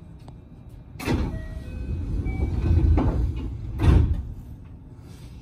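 Electric commuter train passing close by on another track. A sudden rush of rail and wheel noise starts about a second in and builds, with brief motor tones over it. It swells sharply near four seconds, then fades away.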